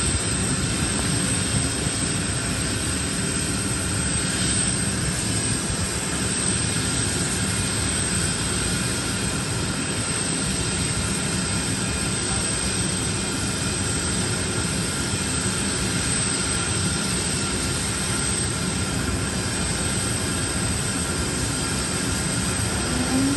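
Steady jet turbine noise from aircraft running on the apron: a continuous rush with a high, even whine that does not change.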